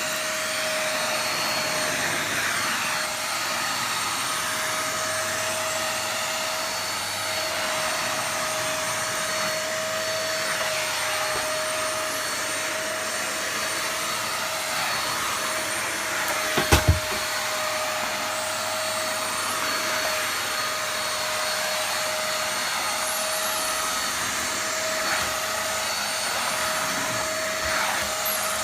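Home & Co 2-in-1 corded stick vacuum with a 600 W motor running steadily while vacuuming the floor, a constant high whine over a rushing hiss. About halfway through there is a short cluster of three or four thumps.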